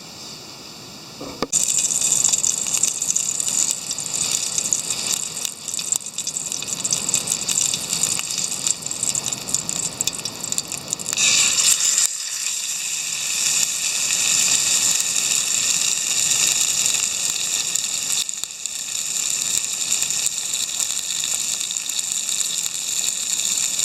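Pork steak sizzling in a hot frying pan on a Trangia spirit stove, a steady hiss that starts suddenly about a second and a half in as the meat goes into the pan.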